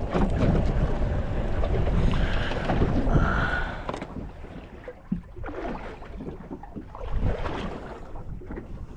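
Water lapping and slapping against a small boat's hull, with wind rumbling on the microphone. It is louder for the first four seconds, then quieter with irregular small splashes.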